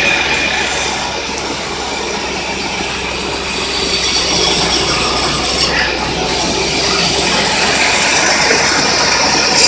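Portable band sawmill running, its blade sawing through an acacia log as it is cut into boards; a loud, steady mechanical noise with no break.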